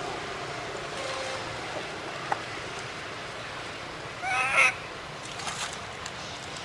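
A baby long-tailed macaque crying in distress: one loud, wavering squeal of about half a second a little past four seconds in, with fainter calls before and after.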